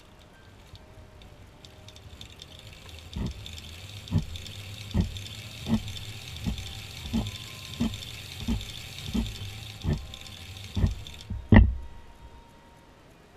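Hand-cranked circular sock knitting machine running, the needles making a steady clatter with a regular knock about every 0.7 seconds. It stops near the end with one louder knock.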